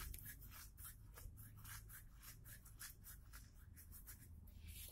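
Faint dry rubbing of carom seeds (ajwain) being crushed between the palms: a quick, irregular run of small scratchy ticks.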